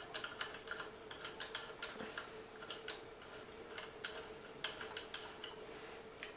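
Light, irregular metallic clicks and ticks as the spring-tension adjuster on a Sunko 788H spot welder's electrode arm is turned and handled, over a faint steady hum.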